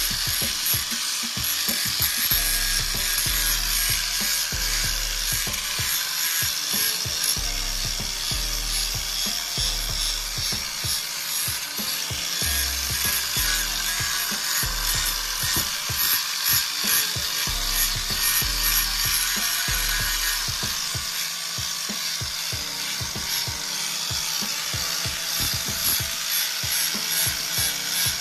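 Angle grinder with a flap disc running against a chromed aluminium alloy wheel, grinding off oxidized, peeling chrome in a steady high hiss, with background music and its bass line underneath.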